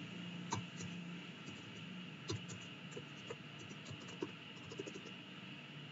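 Computer keyboard keys clicking as text is typed: irregular, sparse keystrokes, faint, over a low steady background hum.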